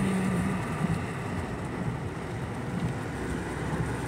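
Steady rushing noise of a car driving through heavy rain on a wet road: tyre spray and rain, heard from inside the car.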